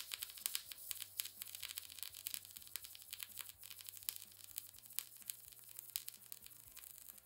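Harbor Freight Titanium MIG welder's arc crackling as a bead is pushed along a thin steel plate: a dense, steady sizzle of rapid pops.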